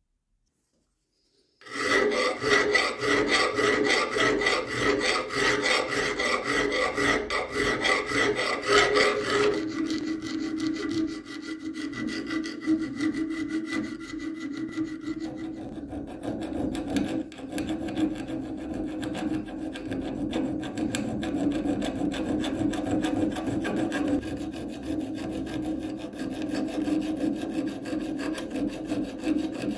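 Abrasive tool scraping and grinding rust off steel combination pliers. The scraping starts abruptly about two seconds in, is continuous and rapid-grained, and turns lower and duller about a third of the way through.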